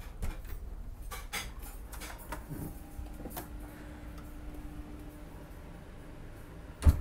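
A wooden interior door's handle and latch clicking as the door is opened and walked through, with scattered light clicks and knocks. Near the end comes a single loud, dull thump.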